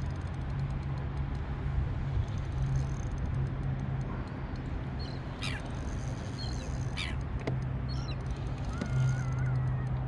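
Birds calling over a steady low hum: two short, sharp calls falling in pitch about a second and a half apart midway, then a brief wavering call near the end.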